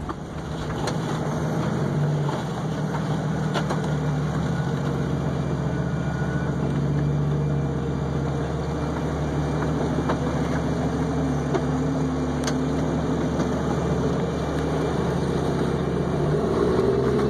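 Off-road 4x4 engine running steadily during slow rock crawling, with a few short sharp clicks.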